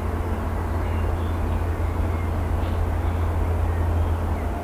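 Steady low rumble of an Airbus A350-941's Rolls-Royce Trent XWB engines at idle as the airliner taxis, heard at a distance, with a few faint high chirps.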